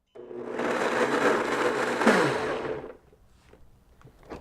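Countertop blender running at full speed, blending soaked cashews and water into a sauce. After about two seconds it is switched off and winds down, its pitch falling as it fades.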